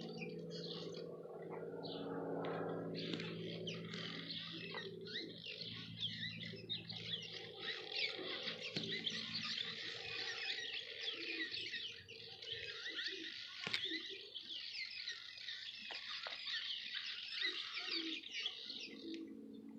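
Many birds chirping and chattering over one another, a dense unbroken mass of short, quick high calls. A low steady hum fades out over the first few seconds, and there is a single sharp click about two-thirds of the way through.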